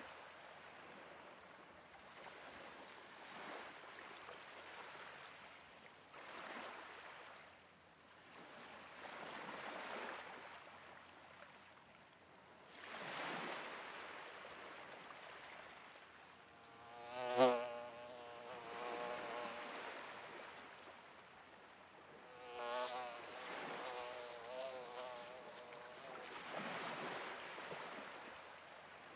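A fly buzzing past, loudest as it passes close about halfway through and again a few seconds later, its pitch wavering as it moves. Underneath is a quiet outdoor hush that swells and fades every few seconds.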